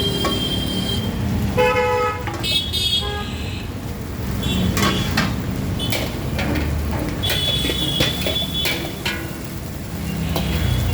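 Street traffic rumbling, with vehicle horns honking several times in short toots and a few sharp clicks over the traffic.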